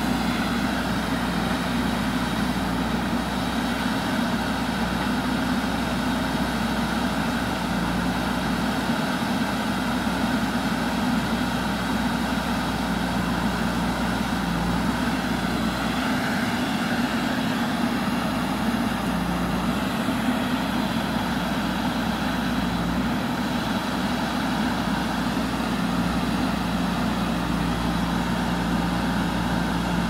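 JCB backhoe loader's diesel engine running steadily under working load, a constant hum whose pitch steps slightly up and down a few times.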